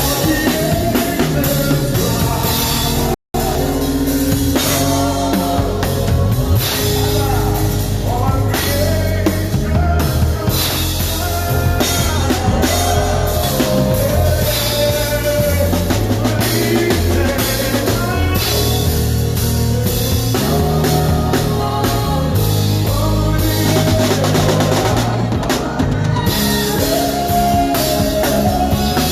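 Live band playing with a drum kit prominent during a sound check, heavy bass underneath; the sound drops out completely for an instant a little over three seconds in.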